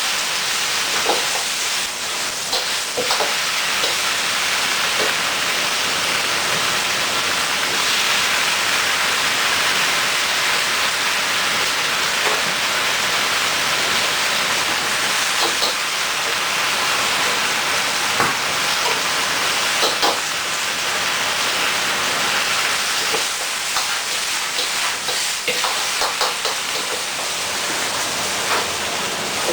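Food sizzling steadily in hot oil in a pan, with scattered light clicks and knocks from a cooking utensil.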